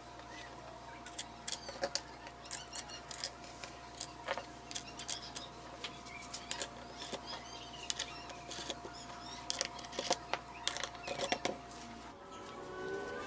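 Irregular small clicks and taps as metal washers and plastic star knobs are set onto bolts and tightened down on a wooden router base plate.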